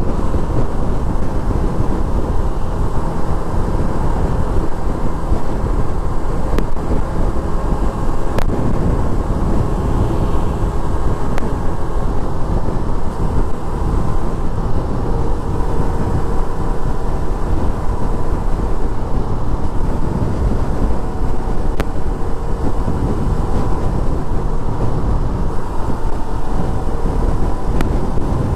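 Sport motorcycle cruising at highway speed: a steady engine note under constant wind noise on the microphone.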